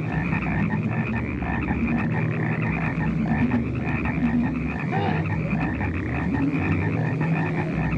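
A dense chorus of many frogs croaking at once, steady and unbroken.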